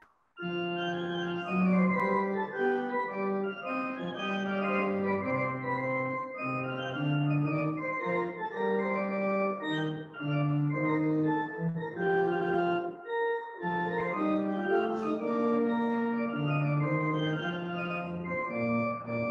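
Pipe organ playing a piece of sustained chords and moving lines. It breaks off briefly just after the start and again about two-thirds of the way through.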